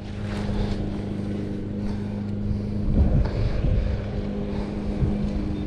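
Boat motor running steadily, a level hum with no change in pitch.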